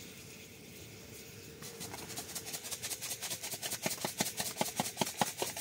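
A small utensil beating rapidly inside a cup, whisking its contents: quick even clicks, about five or six a second, starting about a second and a half in and growing louder.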